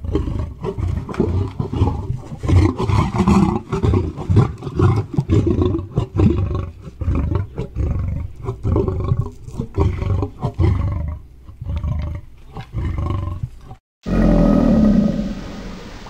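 Big cat growling and roaring in a long run of rough, uneven pulses, cutting off abruptly about 14 seconds in.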